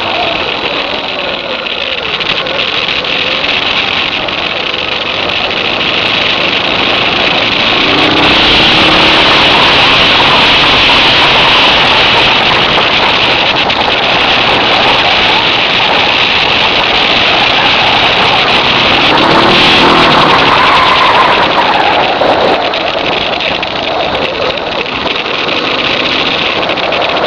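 Suzuki DR650's single-cylinder four-stroke engine running at speed under a steady rush of wind over the microphone; the engine pitch swells and falls with the throttle about a third of the way in and again about three-quarters of the way in.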